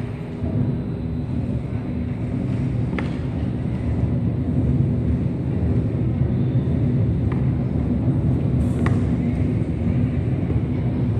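Steady low rumble with a constant low hum underneath, and a few faint clicks.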